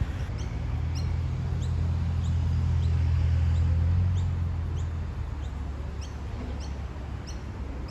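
A bird chirping over and over in short rising chirps, about one or two a second, over a low rumble that swells and then fades about five seconds in.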